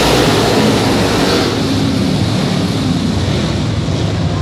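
A pack of dirt late model race cars running hard past and into a turn, their V8 engines a loud, continuous blended roar that eases slightly after a second or so as the field pulls away.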